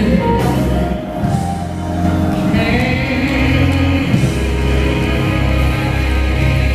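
Live gospel quartet music: a male lead voice singing over electric bass guitar, drums and keyboard, loud and steady.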